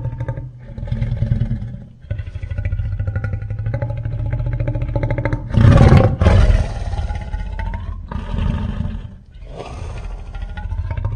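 Toho giant-monster (kaiju) roar sound effects: several long, pitched roars in a row over a deep rumble, with a louder, harsher blast about six seconds in.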